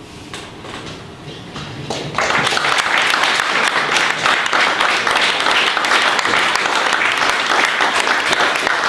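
Audience applauding: a few scattered claps at first, swelling into full, steady applause about two seconds in.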